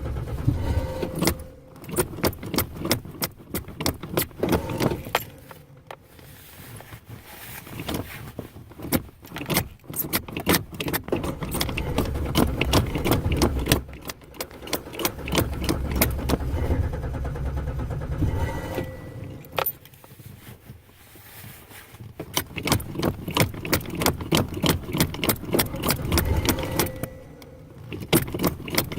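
Ford Ranger pickup engine being cranked over and over by its starter in several long stretches with short pauses between, a rapid even rhythm of clicks over a low rumble: the truck is hard to start.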